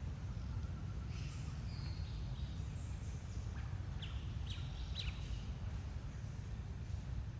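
Steady low outdoor rumble with a scatter of thin, high chirps between about one and five seconds in, several of them quick downward-sliding calls near the middle.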